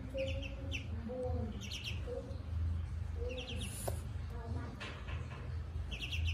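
Ducklings peeping: short, high peeps repeated every second or so, over a low steady hum.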